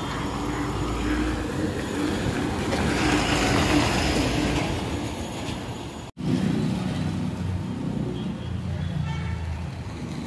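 Street traffic noise with a bus engine approaching and passing, loudest about three to four seconds in. The sound cuts out for an instant about six seconds in, then steady traffic hum continues.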